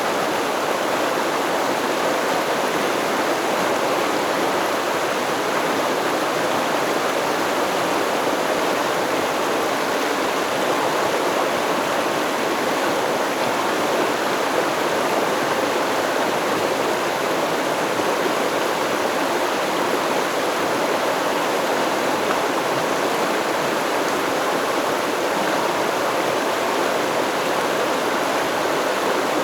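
Stream water flowing and splashing over rocks in a steady, unbroken rush.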